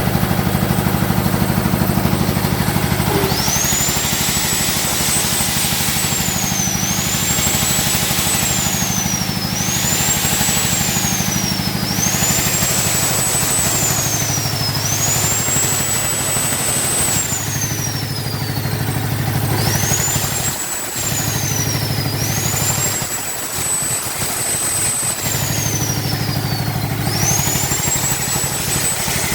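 Diesel generator engine running steadily. From about 3 s in, a high-pitched whistle over it rises, holds and slides back down, repeating every two to three seconds.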